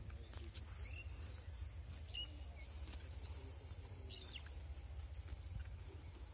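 Outdoor rural ambience: a faint steady low rumble with a few short bird chirps, about three, spread a second or two apart.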